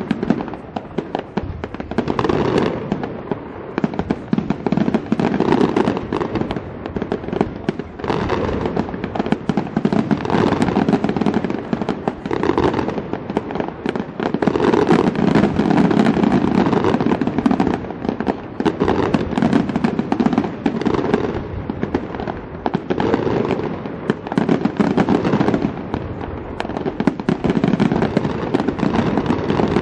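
Aerial fireworks display: a continuous barrage of shell bursts and crackling reports with no pause, growing densest about halfway through and again near the end.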